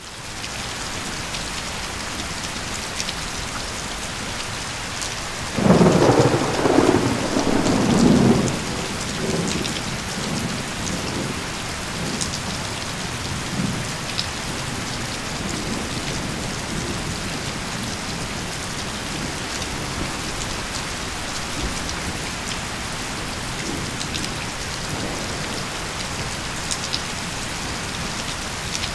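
Steady heavy rain hissing throughout, with a loud clap of thunder about six seconds in that rumbles for a few seconds and fades, and fainter rumbles later on.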